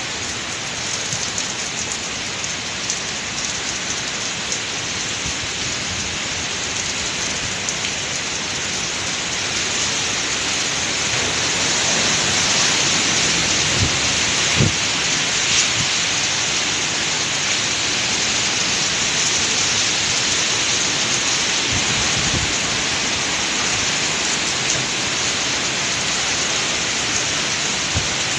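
Typhoon wind and heavy driving rain: a dense, steady rush of rain and gusts that grows louder about ten seconds in, with a few brief low thumps.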